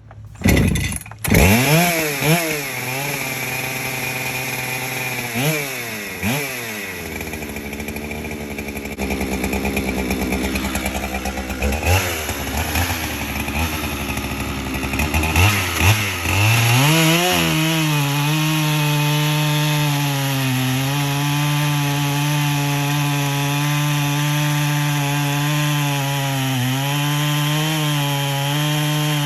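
Gas chainsaw revving up and down several times, then held at steady full throttle for the last dozen seconds as it cuts into a large pecan log.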